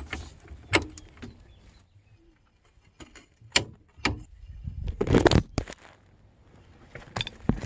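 Scattered sharp metal clicks and knocks of hand tools working on a car's wheel hub, with a denser, louder clatter about five seconds in.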